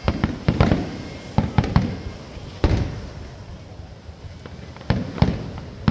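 Fireworks going off: an irregular run of sharp bangs, each trailing off briefly. The loudest comes about two and a half seconds in, then a lull before more bangs near the end.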